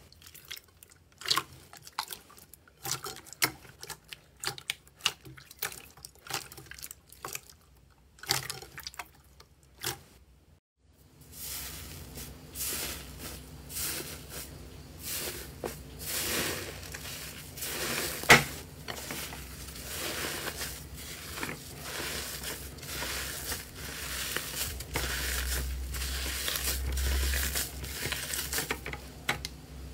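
Hands pressing clear slime, giving sharp wet pops and squelches about once a second. After a short gap near the ten-second mark, dense, continuous crunching and crackling follows as hands squeeze and crumble iceberg slime with a dried, crumbly crust, with one sharp snap about halfway through.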